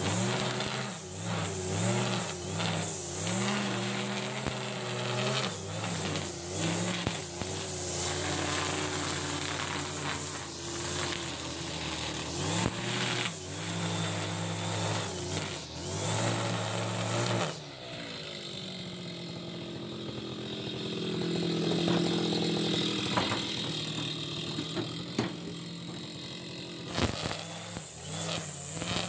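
Backpack brush cutter's small petrol engine running under throttle as it cuts grass, its pitch rising and falling as the throttle is worked, with the ticking swish of the cutter head through the grass. A little over halfway through it drops to a lower, quieter idle, then revs up again near the end.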